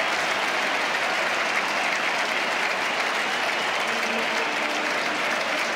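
Football stadium crowd cheering and applauding a goal, a steady wall of noise from the supporters.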